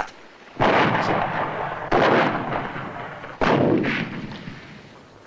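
Three cannon shots of a gun salute, about a second and a half apart, each dying away slowly.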